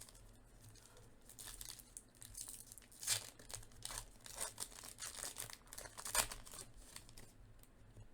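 Trading card pack wrappers being torn open and crinkled by hand, an irregular run of crackling rustles with two louder tears a few seconds apart.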